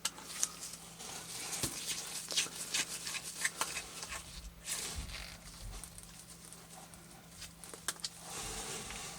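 Small 00 Phillips screwdriver backing out tiny screws: faint, irregular light clicks and scrapes of the tool tip in the screw heads.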